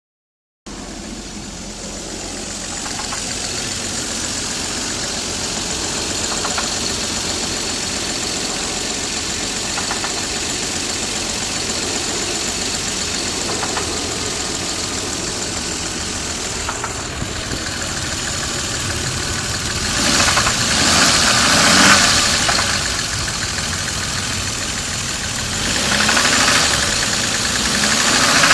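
Toyota 7M-GTE turbocharged straight-six idling with a knock, revved up briefly about twenty seconds in and again near the end. The owner thinks the knock sounds like rod knock.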